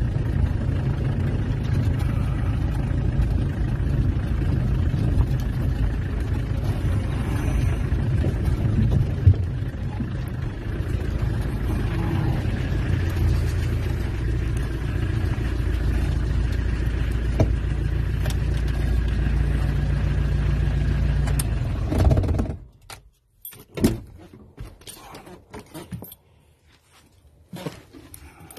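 Peugeot 404 pickup's XD3 diesel engine running steadily as the truck is driven in, heard from inside the cab, then switched off about 22 seconds in, the rumble stopping abruptly. A few sharp clicks and knocks follow.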